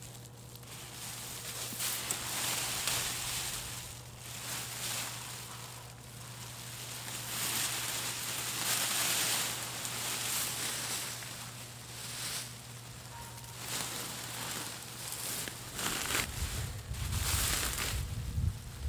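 Black plastic mulch film crinkling and rustling in waves as it is pulled back off a planting bed, along with the crackle of dry stalks, and a few low thumps near the end.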